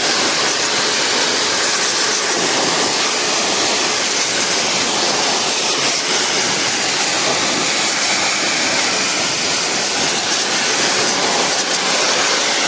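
Pressure-washer water jet spraying steadily onto a split air conditioner's indoor evaporator coil, flushing packed dust and dirt out of the clogged coil.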